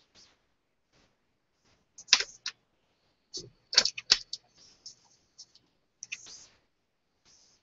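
Light irregular clicks, taps and short scratchy rustles of hands and a pen working at a desk, loudest about two seconds in and in a quick cluster around four seconds in.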